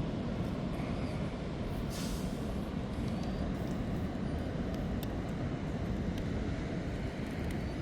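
Steady low rumble of wind and surf, with a brief hiss about two seconds in.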